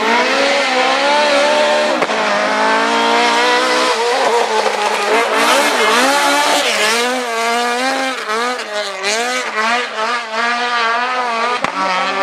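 Ford Escort Mk2 rally car's engine revving hard as it slides through a bend, its pitch climbing and dropping again and again with throttle and gear changes, faster in the second half. Tyres squeal as the car drifts around the middle.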